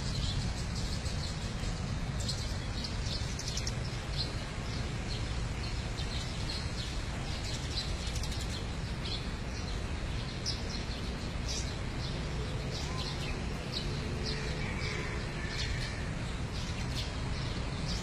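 Many small birds chirping, short high chirps coming thick and fast, over a steady low rumble.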